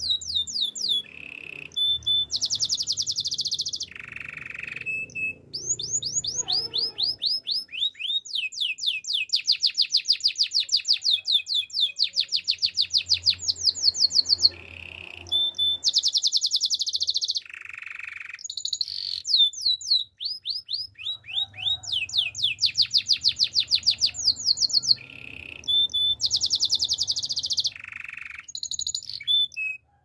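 Male canary singing a long, continuous song of fast trills: runs of quickly repeated high notes, about seven a second, switching from one trill to the next with short whistled phrases between.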